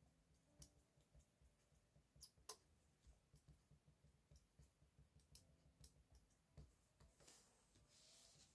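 Near silence with faint, scattered clicks and taps of a pen tip on paper during handwriting, and a soft sliding rustle of the paper sheet near the end.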